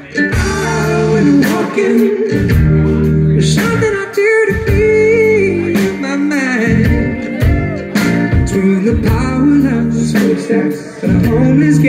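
Live band playing a song: a sung vocal over electric guitar, bass guitar and drum kit, with a small strummed acoustic string instrument.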